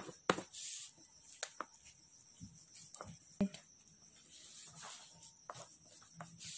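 A black crayon stroked over drawing paper in short, quiet strokes, with a few light taps and clicks between them.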